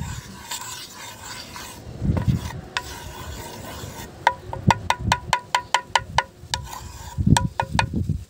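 Wooden spatula scraping and rubbing across a flat non-stick tawa, spreading cooking oil over it. In the second half come a run of quick ringing taps on the pan, about four a second.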